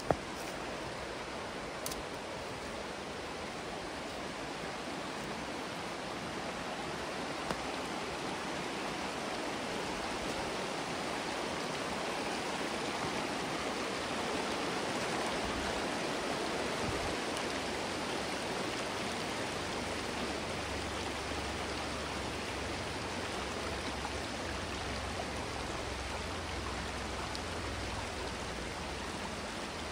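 Creek water running over rocks: a steady rush of flowing water. A sharp click comes right at the start, and a low rumble joins from about halfway through.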